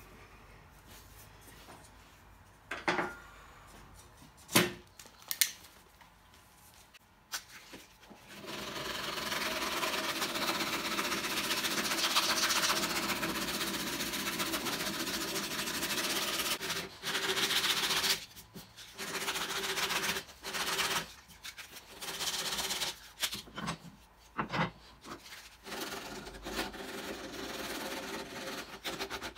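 Rosewood saw handle being sanded with coarse 60-grit abrasive: a steady gritty scraping that starts about 8 s in and pauses briefly a few times near the end. Before it, a few short knocks.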